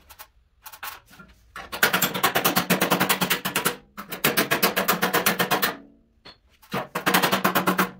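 Body hammer striking a steel car fender against a hand-held dolly in fast runs of blows, roughly ten a second, with three runs starting about two seconds in, about four seconds in and near the end, after a few single taps. The metal is being straightened: a dented fender edge worked back into shape with hammer and dolly.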